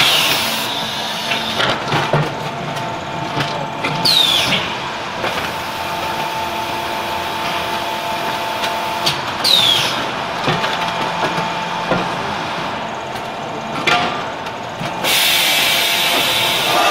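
Double-layer terrazzo floor tile press machine running with a steady hum, broken three times by a short squeal that falls in pitch, with a few knocks. About fifteen seconds in, a steady hiss starts.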